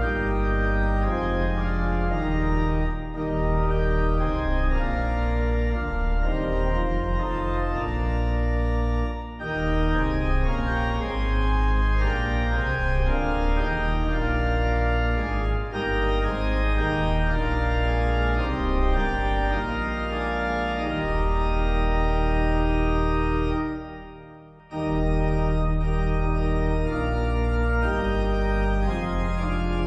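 Organ playing a hymn in slow, sustained chords. It breaks off briefly about three-quarters of the way through, then resumes.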